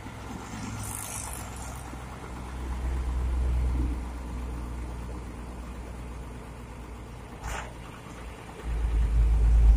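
Road traffic: engines of passing vehicles, a low rumble that swells about three seconds in and again, loudest, near the end. A short sharp click comes about seven and a half seconds in.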